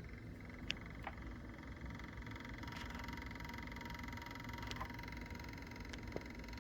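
Computer running with a steady whirr and a faint high whine, broken by a handful of sharp clicking taps at irregular intervals. The owner takes the clicking for a fan knocked out of position rather than a failing hard drive.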